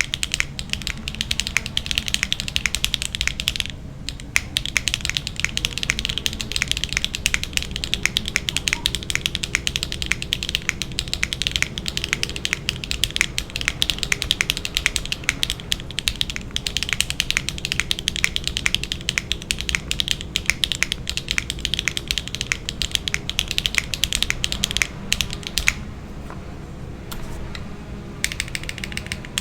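Fast typing on a Neo65 mechanical keyboard with HMX Emo switches, a carbon fibre plate, no foam and JTK Azure ABS doubleshot keycaps: a dense stream of keystroke clacks. There is a short break about four seconds in and a longer pause near the end.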